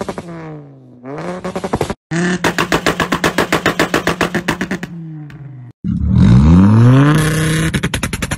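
Tuned VW 2.5L inline-five engine revving through its exhaust and holding against a two-step launch-control limiter, with a rapid, even crackle of exhaust pops, in several cut-together clips. The loudest is a sharp rev-up about six seconds in that settles onto the limiter, crackling.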